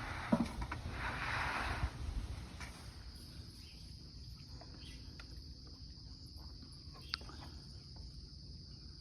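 A gusty rumble of wind on the microphone with a sharp click in the first few seconds, then a steady high insect trill, like crickets, with a few faint ticks over it.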